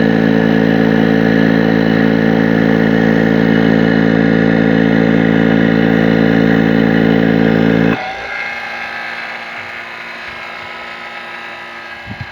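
Vacuum pump running with a loud, steady hum, switched off about eight seconds in, after which a quieter sound slowly fades as it runs down.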